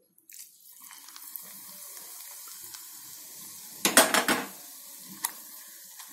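Smoking-hot oil sizzling as it is poured onto grated raw mango and spices, a steady hiss, with a short clatter of sharp knocks about four seconds in.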